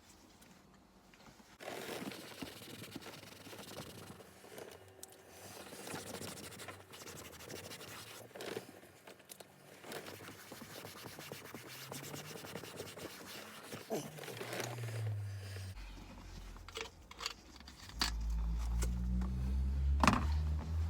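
Repeated scratchy rubbing and wiping on a leather car seat bolster as its stripped surface is cleaned off, coming and going in strokes. A low rumble builds over the last few seconds.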